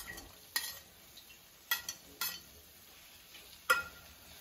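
Four short clinks of a serving spoon against the kadhai as fried paneer pieces are tipped into the gravy, spaced irregularly, the last one near the end ringing briefly.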